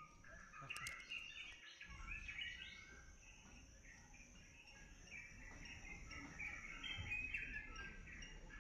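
Birds chirping and calling, faint, many short chirps over a light background hiss.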